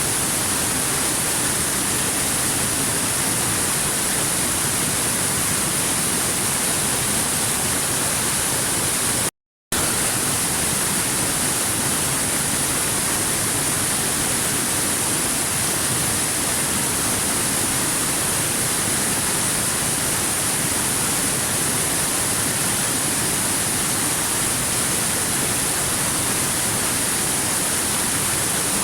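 Steady, even rush of waterfall water, a constant hiss with no rhythm. It cuts out completely for about half a second some nine seconds in, then resumes.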